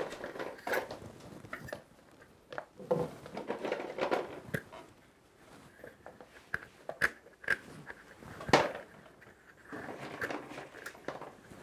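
Scattered light clicks and crunches as small firework stars are set by hand into a paper shell half of a shakudama firework. The clicks come irregularly, a few at a time, and the loudest is about eight and a half seconds in.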